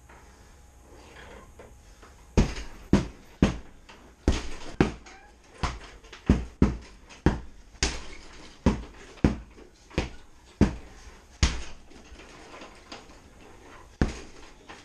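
Heavy punching bag being struck hard, by tomahawk blows and kicks: about fifteen sharp thuds at roughly two a second, starting a couple of seconds in and breaking off a few seconds before the end, with one more hit near the end.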